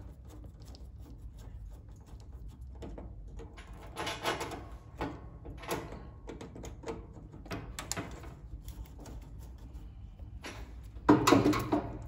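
A screwdriver working the screws of a fire alarm panel's terminal block, with scattered small metallic clicks, scrapes and wire handling. Near the end comes one louder, brief clatter.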